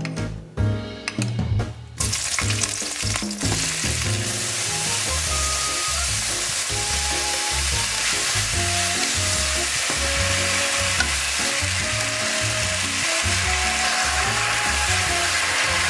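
A spoon clinks briefly in a small cup of sauce. About two seconds in, strips of pork and sliced onion start stir-frying in a hot wok, with a steady loud sizzle over the turning of wooden chopsticks. Background music plays throughout.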